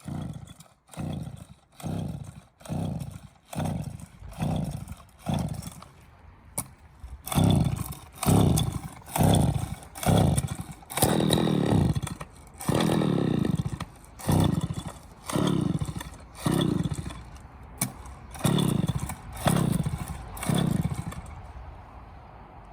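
Two-stroke chainsaw filled with diesel being pull-started over and over, about one pull a second, each pull cranking the engine over without it catching; the pulls stop near the end. The saw fails to start on diesel.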